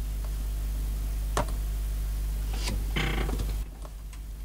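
Laptop clicks: single sharp clicks, then a short rattling run of clicks about three seconds in, over a steady low hum that drops suddenly near the end.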